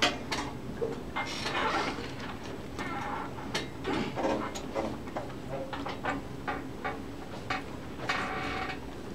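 Classroom during group work on a problem: scattered soft clicks and rustles from pens, paper and desks, with indistinct murmuring of students talking among themselves.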